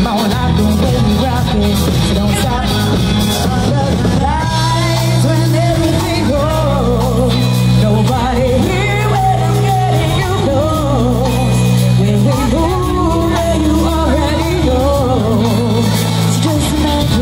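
Live band playing a pop-rock song, with a woman singing lead into a microphone over electric guitars, a bass line, keyboards and drums.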